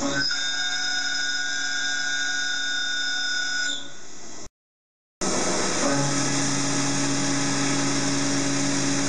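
A 16 mm four-flute solid-carbide end mill full-slotting 16MnCr5 steel on a CNC machining centre: a steady cutting whine with several held tones over a hiss, held first in a hydraulic expansion chuck. The sound cuts out briefly a little over four and a half seconds in, then the same cut resumes with the end mill in a CENTRO P precision collet chuck, where the deep hum is stronger and the high whine fainter.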